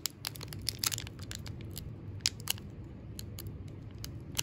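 Foil wrapper of a 1992 Donruss baseball card pack crinkling and crackling in the fingers as it is picked at and pulled, a stubborn wrapper that will not tear open easily. Irregular sharp crackles with short quiet gaps between them.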